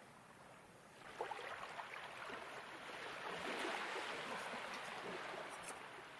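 Gentle ocean waves: one wave washes in, swelling for a couple of seconds and then fading away again.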